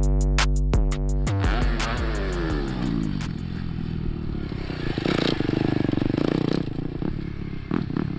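An electronic drum-machine beat plays and cuts off about a second and a half in. A motocross bike's engine then takes over, revving and running on the track, louder from about five seconds in, with some clatter.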